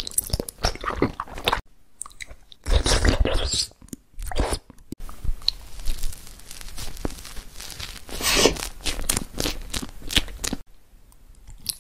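Close-miked ASMR eating sounds: bites and chewing with crunchy, crackly mouth noises. There is a short pause about two seconds in and another near the end.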